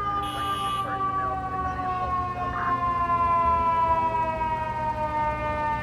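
Fire truck siren winding down, its single tone falling slowly and steadily in pitch over a truck's low engine rumble. There is a short hiss under a second in.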